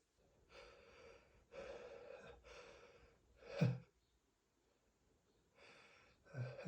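A person breathing in short, noisy, shaky breaths during a dust-triggered sneezing fit, with a sharp gasp about three and a half seconds in and another just before the end, as the urge to sneeze builds.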